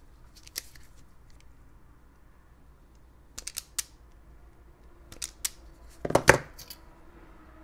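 Self-adjusting wire stripper clicking and snapping in a few short bursts as it clamps and strips the insulation from a blue wire, the loudest snap about six seconds in.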